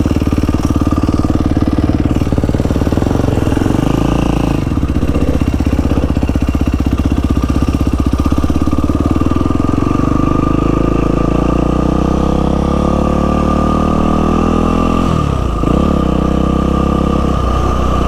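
Yamaha WR450F's single-cylinder four-stroke engine running steadily at low revs as the dirt bike rides slowly. Revs creep up in the second half, with two brief dips near the end.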